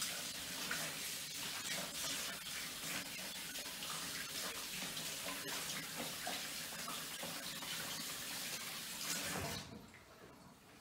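Kitchen tap running into a sink while hands are washed under it; the water is shut off suddenly near the end.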